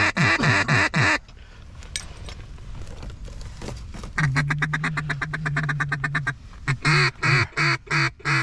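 Mallard hen duck call blown close by, calling to circling mallards: the tail of a descending run of quacks ending about a second in, then a fast feed chatter over a steady low note, then a cadence of separate loud quacks near the end.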